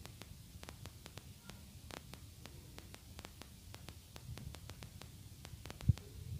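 Faint, sparse crackling of hot oil and masala in a non-stick pan with boiled potato chunks just added, over a low hum. One soft thump near the end as a wooden spatula starts stirring.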